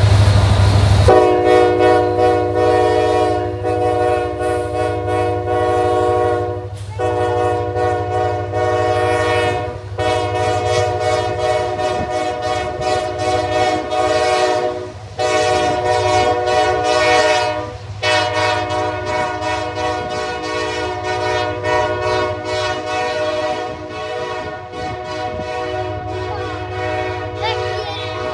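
A diesel locomotive's multi-chime air horn sounds a steady chord, broken by four brief gaps into a string of long blasts, over the low rumble of the passing freight train.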